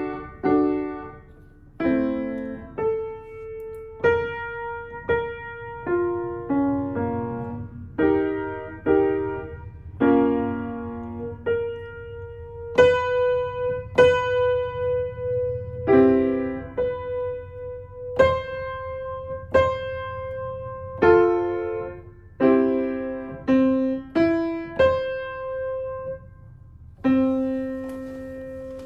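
Piano played by a toddler experimenting at the keys: single notes and clustered chords struck one at a time, about once a second and unevenly spaced, each left to ring and fade. One note in the middle of the keyboard comes back again and again.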